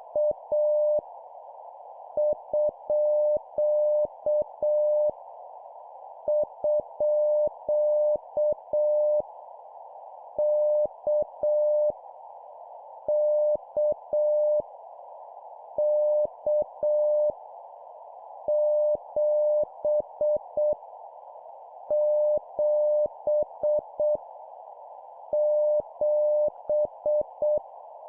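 Morse code (CW) practice sent at 7 words per minute: a single steady beep keyed on and off into dots and dashes, in groups of random characters a second or two apart. A soft, steady hiss runs beneath it.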